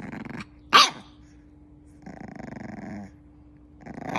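A bulldog puppy growling in a low rattle, breaking into a short high yap about a second in, growling again, then starting another yap at the very end.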